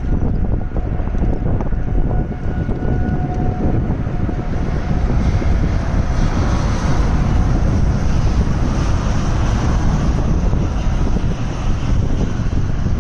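Tornado wind: a steady low roar with gusts buffeting the microphone.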